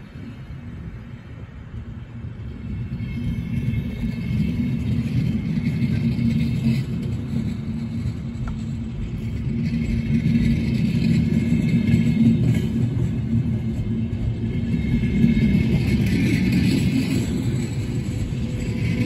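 A train running on the tracks: a low, steady rumble that grows louder from about three seconds in, with higher rail noise building toward the end.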